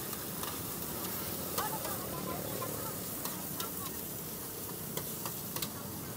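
Shredded cabbage, greens and noodles sizzling in a large wok as they are stir-fried, with a steady hiss. Metal utensils clink and scrape against the pan now and then, in irregular single taps.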